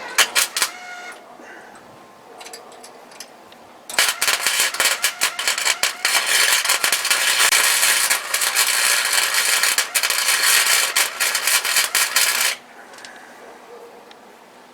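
Welding on the channeled sheet-metal floor of a 1948 Ford body: a steady crackling sizzle of the arc that starts about four seconds in, runs for about eight seconds and stops suddenly.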